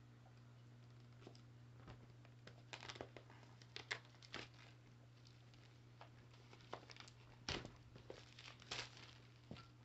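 Packaging of a small cardboard box being handled and opened by hand: the seal peeled and the inner box slid out of its sleeve, giving scattered crinkles and scrapes. The loudest are about four, seven and a half and nine seconds in.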